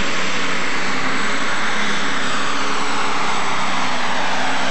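Turbocharged diesel engine of a 9,500 lb super stock pulling tractor running flat out under full load as it drags the weight-transfer sled down the track. The roar is loud and steady.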